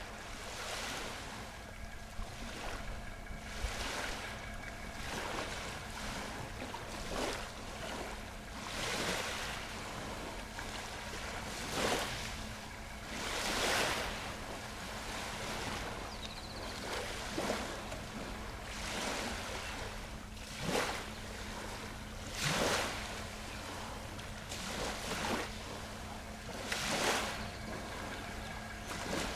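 Small sea waves splashing and washing in every second or two, with sharp slaps among broader swells, over a steady low hum.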